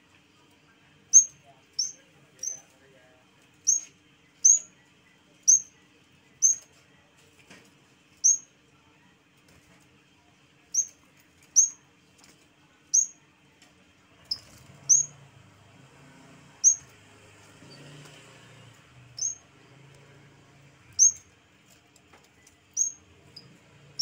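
Caged yellow-bellied warbler (cikrak bambu) calling: about eighteen short, sharp, high chirps, each with a quick downward flick, repeated irregularly roughly once a second with a brief pause partway through.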